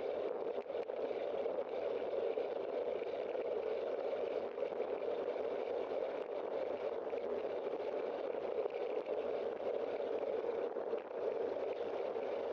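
Steady rushing wind and road noise of a moving bicycle, picked up by the bike-mounted camera's microphone.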